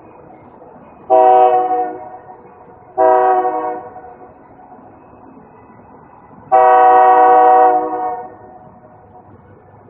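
Train air horn sounding three blasts, two shorter ones followed by a longer one, each a steady multi-note chord that trails off in echo when it stops.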